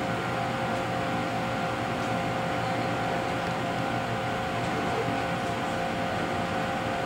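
Electric commuter train approaching the station: a steady running noise with a faint, steady high hum.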